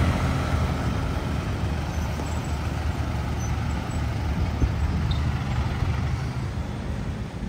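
Steady outdoor background noise: a continuous low rumble with a fainter hiss above it, with no distinct events.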